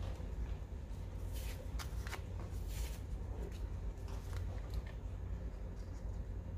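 Paper and stationery being handled: several short rustling, sliding strokes over a steady low background hum.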